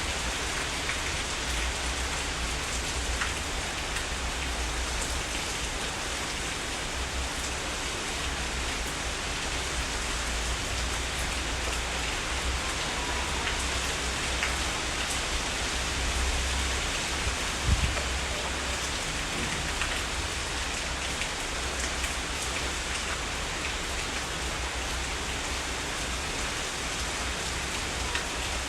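Heavy rain falling steadily, a dense even patter of drops, with a low rumble underneath. A single short low thump stands out about two-thirds of the way through.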